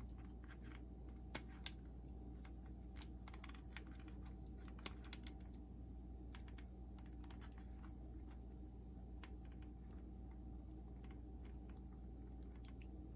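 Faint, scattered small clicks and taps from handling the opened Walkman's plastic parts and belts, a slightly louder click about five seconds in, over a steady low hum.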